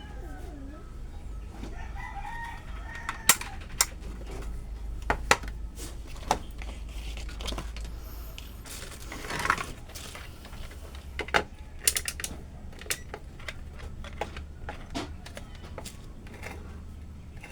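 A string of sharp clicks and knocks a few seconds apart, with a brief rustle about nine seconds in, over a low steady hum. A few short animal calls sound near the start.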